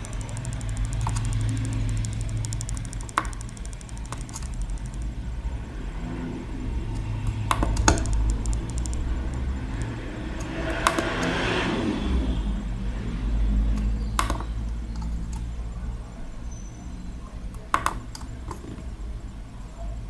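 Steady low rumble of room noise with a handful of sharp clicks, about five in all, and a brief hiss near the middle.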